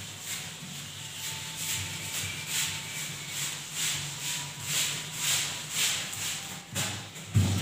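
Whiteboard eraser wiping marker off a whiteboard in quick back-and-forth strokes, a rubbing hiss with each stroke at about two a second. A short thump near the end.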